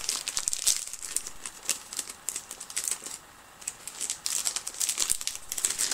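Plastic and cardboard doll packaging being handled, with irregular crinkling, crackles and ticks and a brief pause near the middle.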